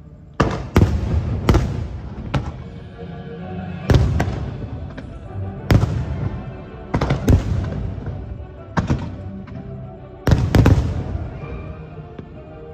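Aerial fireworks shells bursting in a display: about a dozen loud bangs at uneven intervals, some in quick pairs, each followed by a fading crackle. Music plays under them.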